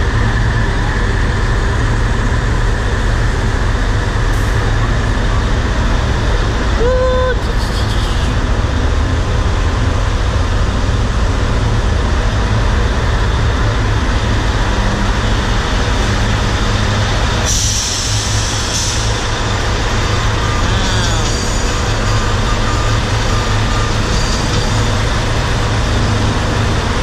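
Heavy diesel buses idling with a steady low rumble. Partway through comes a short sharp hiss of compressed air, like an air brake releasing, and earlier a brief pitched beep.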